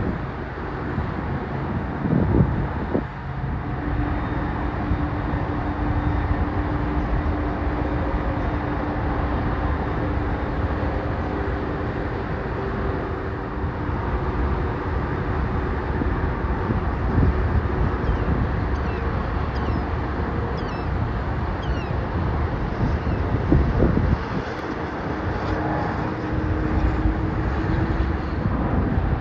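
Steady rumble of vehicle engines with a droning engine tone, and wind buffeting the microphone in a few short gusts.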